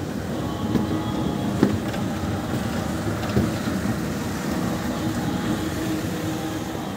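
Steady, dense din of a busy indoor shopping mall, with a few sharp knocks, one about a second and a half in and another near the middle.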